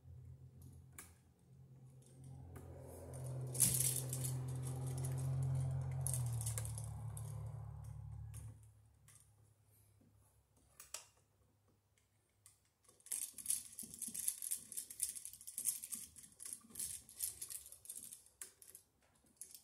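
A low steady hum with a broader rumble swells for a few seconds and fades out about eight seconds in, with one sharp click inside it. Later come several seconds of small irregular clicks and scrapes from handling the copper wire and the switch's screw terminals while wiring a light switch.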